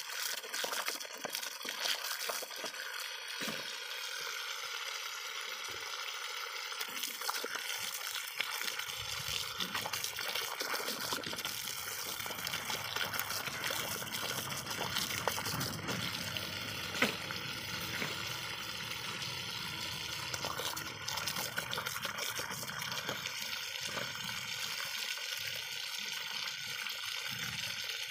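Water spurting steadily from a garden hose, with splashes as a dog bites and laps at the jet.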